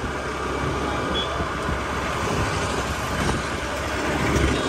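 Steady engine and road noise from riding a motorbike or scooter along a town street, with the sound of passing traffic.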